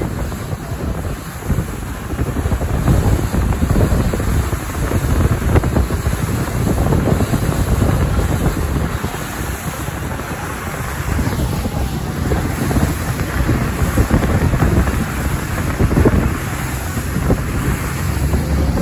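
Wind buffeting the microphone, a gusting low rumble, with the wash of sea water beneath it.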